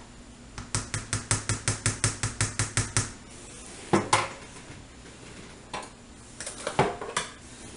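Kitchenware clattering around a plastic tub of freshly mashed potatoes: a quick, even run of about six hard taps a second for a couple of seconds, then one loud knock about four seconds in and a few lighter clatters near the end.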